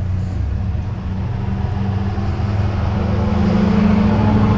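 A motor vehicle driving on a snow-covered street: a steady low engine hum with road noise, growing louder from about three seconds in as it comes closer.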